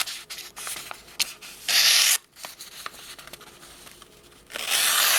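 Civivi Riffle folding knife's Sandvik 14C28N blade making slicing cuts in a sharpness test: a short slice about two seconds in and a longer one near the end, with small ticks and rustles between.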